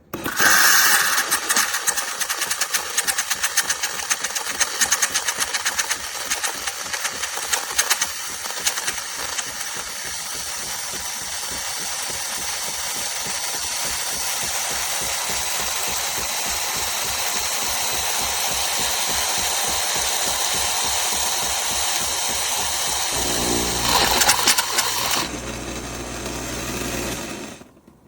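Philips 3300 Series fully automatic espresso machine running a brew cycle. Its built-in grinder starts suddenly and crackles through the beans for about nine seconds, then settles into a steady whir. Near the end a low pump hum joins for a few seconds before everything stops.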